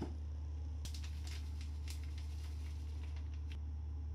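A few faint, light clicks and taps of a plate and food being handled on a wooden tray, over a steady low hum.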